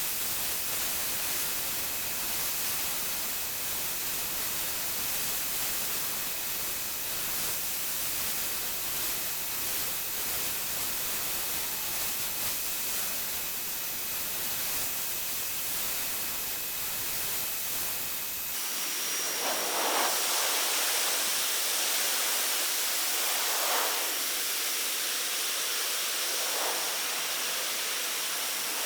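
Electric pressure washer spraying: a steady hiss of the water jet with a thin, steady whistle over it. About two-thirds of the way through the sound changes abruptly to a brighter hiss with a higher whistle, swelling every three seconds or so.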